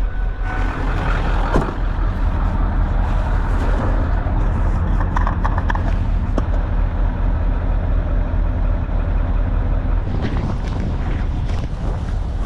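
Diesel truck engines idling: a steady low rumble with some noise over it and a few faint clicks.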